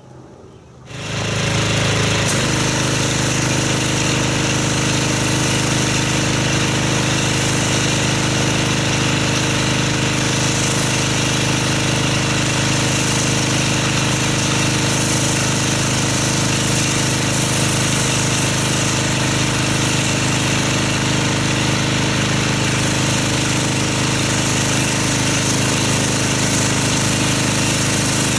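Pressure washer rinsing snow-foam car soap off a car: the machine kicks on about a second in, then runs steadily, its motor and pump humming under the hiss of the spray.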